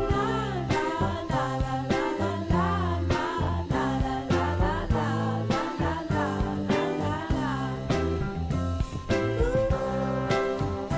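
Background music with a sung melody and a steady beat; the singing drops out about eight seconds in, leaving the instruments.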